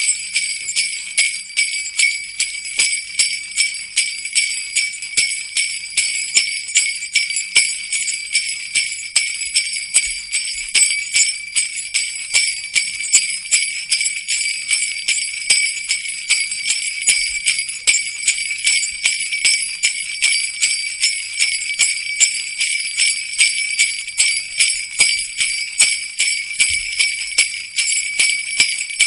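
Jingle bells (sleigh bells) shaken continuously in a steady, even rhythm: a bright, high metallic jingling.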